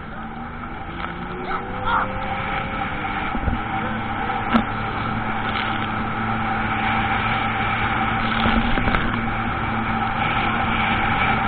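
Jet ski engine running steadily under way, its drone slowly growing louder.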